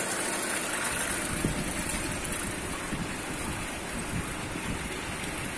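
Steady running of a belt-driven centrifugal pump and its electric motor, with water flowing through the rig.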